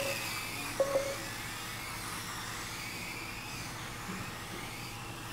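Kyosho Mini-Z 1/28-scale electric RC cars racing, their motors whining and rising and falling in pitch. A short tone sounds about a second in.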